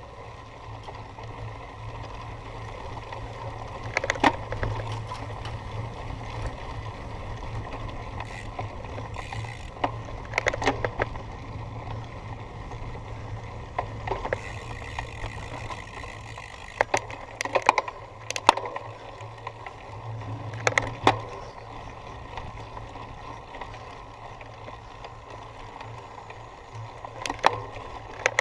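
Cyclocross bike rolling over rough ground under a steady low rush, with sharp clattering rattles from the bike at irregular intervals, several close together about two-thirds of the way through.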